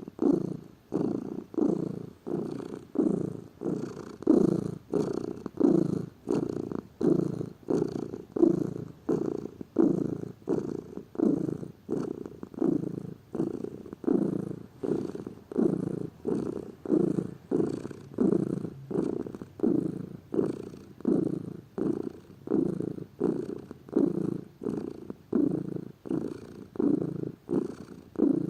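Domestic cat purring close up, a low steady purr that swells and fades with each breath in and out, a little more than once a second.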